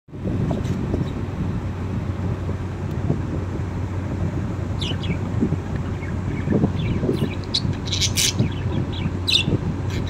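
Budgerigars giving short, high chirps, a cluster of them from about halfway through, over a steady low rumble.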